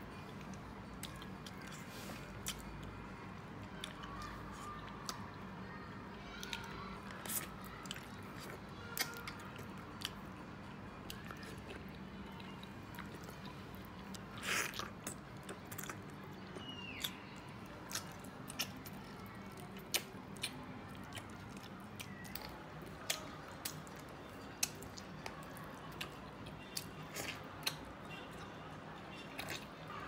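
A man chewing, sucking and gnawing pieces of braised soft-shell turtle, with short wet clicks and smacks at irregular moments over a faint steady hum.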